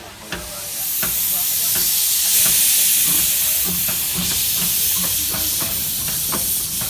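Baldwin 10-12-D narrow-gauge steam locomotive letting off a loud, steady hiss of steam, which swells up about a second in and keeps going.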